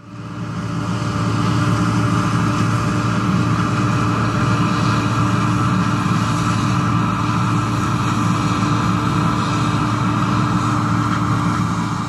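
John Deere CTS rice combine harvester running steadily at working speed: an even mechanical drone with a constant low hum. It fades in over the first second or so.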